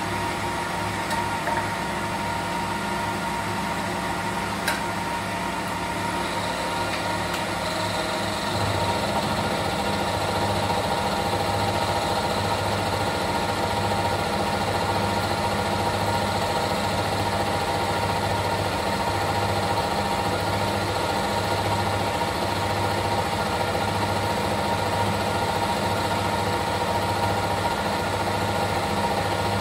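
Milling machine spindle running a freshly resharpened two-flute endmill through a light cut in a metal block, a steady machining whir with a pulsing hum. About eight seconds in the sound grows louder and then holds steady. The cut sounds smooth, a sign the reground end cutting edges are cutting well.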